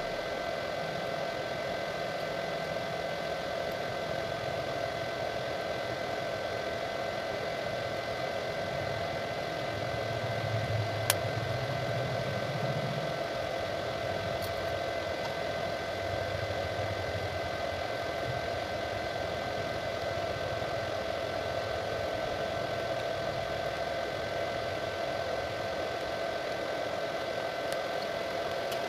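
Steady mechanical hum with several constant whining tones, a low rumble that swells briefly, and one sharp click about eleven seconds in.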